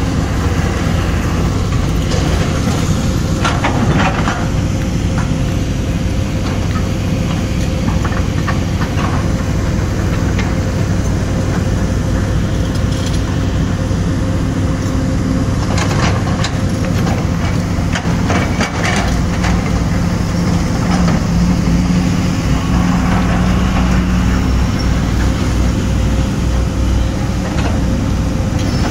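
Diesel engines of hydraulic crawler excavators running under digging load, a steady heavy drone. A few sharp knocks of bucket on rock come through, a cluster about four seconds in and more past the middle.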